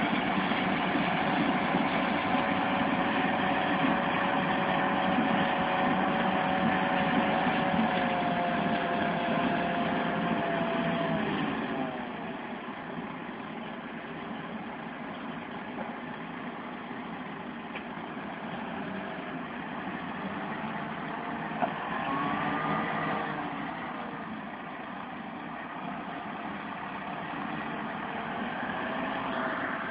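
Massey Ferguson 4355 tractor's diesel engine and the PTO-driven SIP Tornado 80 corn harvester it pulls, running steadily through the crop with a whining tone over the drone. About a third of the way in the whine falls in pitch and the sound drops in level.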